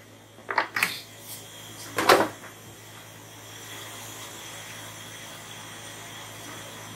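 A metal spoon clattering against a large aluminium cooking pot of chopped pumpkin leaves: a few short knocks in the first second and a louder one about two seconds in. A steady low hiss follows.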